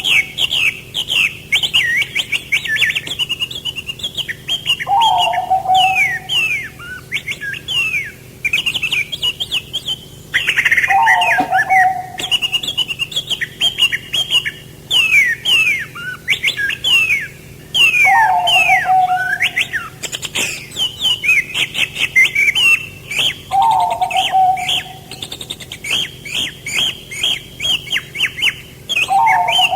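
Songbirds chirping and singing in rapid, busy phrases, with a lower, shorter call repeating about every six seconds.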